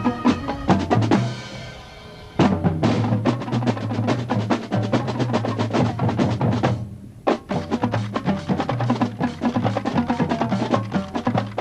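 Marching band music carried by the percussion: snare and bass drums with drum rolls and sharp wood-block-like strikes over pitched notes. It drops away briefly about a second and a half in, and breaks off for a moment about seven seconds in before the drums come back in.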